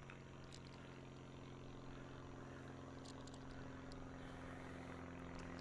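Faint, steady engine drone that grows slowly louder, with a few light ticks over it.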